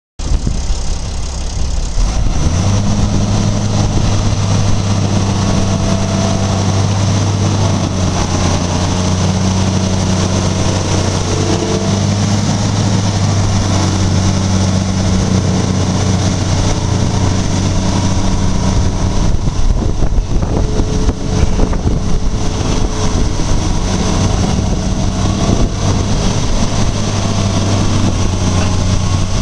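Fiat-Hitachi FH200 tracked excavator's diesel engine running steadily as the boom, arm and bucket are worked, its pitch stepping up slightly about two seconds in.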